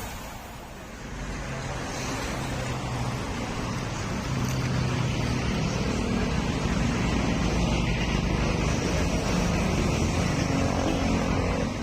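Rusi Classic 250 motorcycle engine running through a universal M4 aftermarket exhaust muffler, a steady low exhaust note that gets louder about a second in and again about four seconds in.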